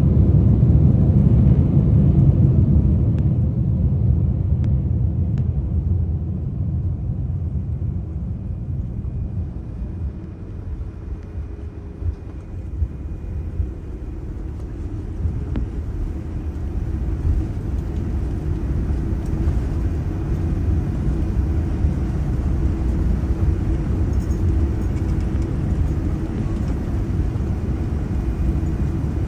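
Low rumble inside the cabin of a Boeing 787-10 on the ground after touchdown. It is loudest at first, eases off over about the first ten seconds, then builds steadily again.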